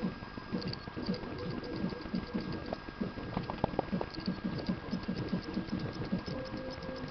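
Opened 120 GB hard drive's head actuator arm seeking back and forth in rapid, irregular clicks and ticks, several a second, over a steady high whine: the damaged drive failing reads and retrying. A steady lower hum joins about six seconds in.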